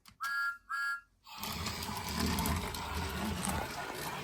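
Two short electronic whistle-like toots from a talking toy's sound chip, then a small battery toy motor running steadily with a gear whir.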